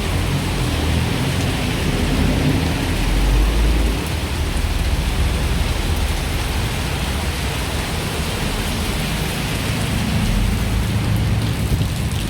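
Road traffic on wet asphalt: a steady hiss of tyres on the wet road over the low running of vehicle engines, with a low rumble that swells about three seconds in and again near ten seconds as heavier vehicles pass.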